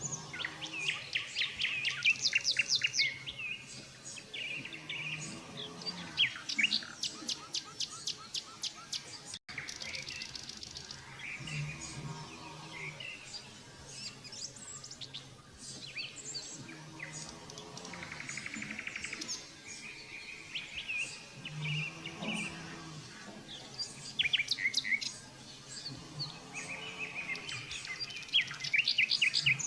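Several birds chirping and calling, with runs of rapid repeated notes and short trills and a brief break about nine seconds in.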